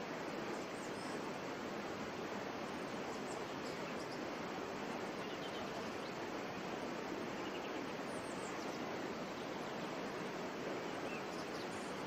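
Steady rushing of a waterfall, an even unbroken roar of falling water, with a few faint high bird chirps now and then.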